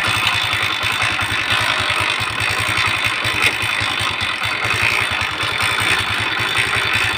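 Mahindra Centuro Rockstar's single-cylinder four-stroke engine idling steadily with a fast, even beat, together with an unwanted noise that the owner traces to the kick-starter, where a broken piece has become stuck inside.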